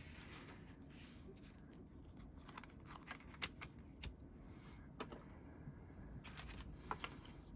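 Faint scattered clicks and light rustling of paper photocards being handled.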